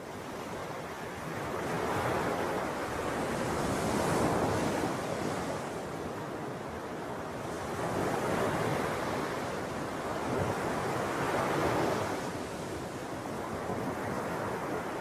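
Ocean surf: a steady wash of waves that swells and recedes every few seconds.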